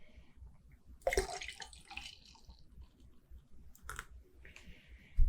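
A person sipping beer, a wet slurping sound about a second in, followed by a single small click a few seconds later.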